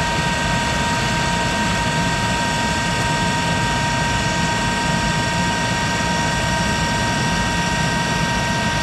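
A 1951 Monarch 10EE lathe running at about 1200 RPM while taking a roughing cut in 4140 pre-hardened steel with a carbide insert. It is a steady machine whine with several fixed tones over even cutting noise.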